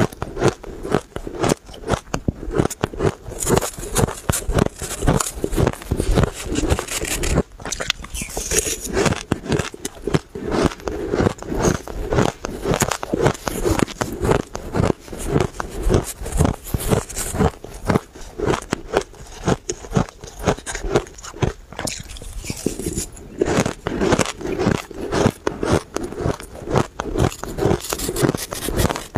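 Close-miked chewing of crunchy blended shaved ice, a rapid run of crisp crunches several times a second, with a metal spoon scraping through ice in a stainless steel pot.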